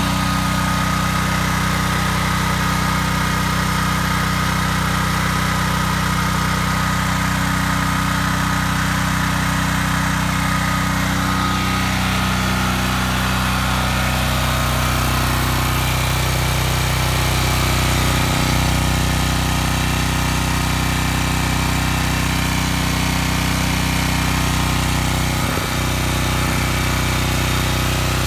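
Generac XP8000E portable generator engine running steadily at constant speed, freshly serviced with new oil, filters and spark plug and being run for a few minutes after start-up.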